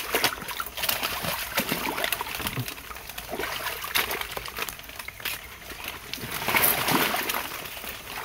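Irregular splashing and sloshing of steps wading through shallow swamp water, with leaves rustling, growing louder about two thirds of the way through.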